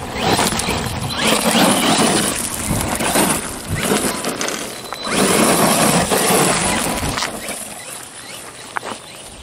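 Brushless HSP Wolverine 4x4 RC monster truck driven hard on loose gravel: the electric drivetrain and tyres churning gravel in two or three surges of throttle. It eases off near the end.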